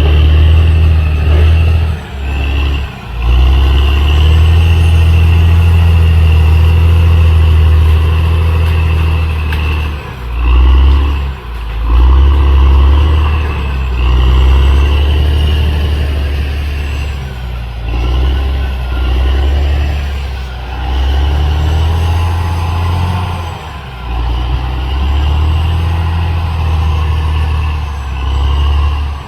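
CAT D6R XL bulldozer's diesel engine running hard, its low note dipping briefly and picking up again every few seconds as the load changes.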